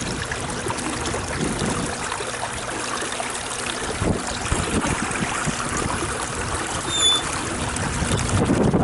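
Running water, splashing and trickling, as a steady noisy rush with a brief high chirp about seven seconds in.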